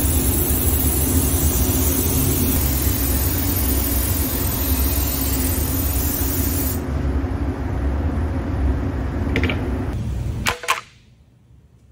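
Airbrush spraying paint, its air compressor running steadily underneath: a hiss over a low hum. The higher hiss drops away about seven seconds in, and the whole sound cuts off sharply about ten and a half seconds in.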